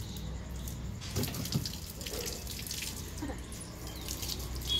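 Water running out of a garden hose and splashing onto a wet concrete floor.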